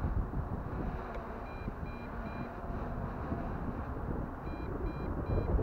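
A low-battery alarm beeping in sets of three short, high beeps, about every three seconds, over wind rumbling on the microphone. The beeping warns that the drone's battery has dropped to its low-voltage stage.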